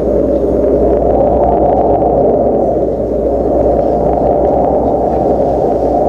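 Steady, loud rushing noise with a low hum under it, unchanging throughout.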